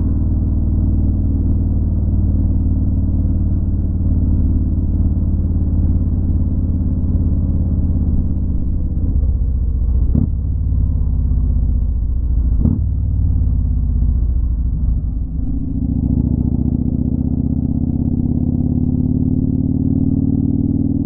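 Motorcycle engine running at road speed, heard from a camera on the bike, with two short knocks about ten and twelve seconds in. About three quarters of the way through the note drops briefly, then its pitch climbs steadily as the bike accelerates.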